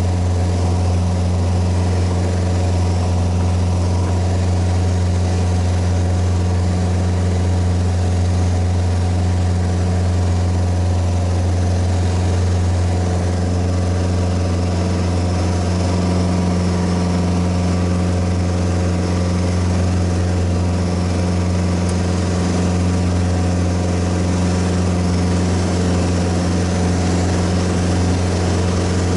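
Single-engine light aircraft's piston engine and propeller at takeoff power through liftoff and the climb-out, heard inside the cabin as a steady low drone.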